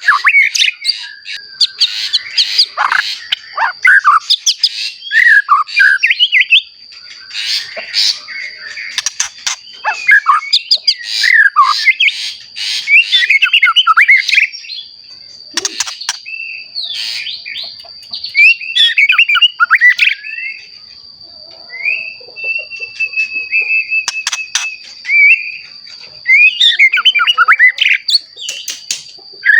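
Young white-rumped shama, newly in adult plumage, singing in full voice: a fast, ever-changing stream of whistles, trills and chirps, with one long held whistle about three-quarters through. A thin steady high tone runs underneath.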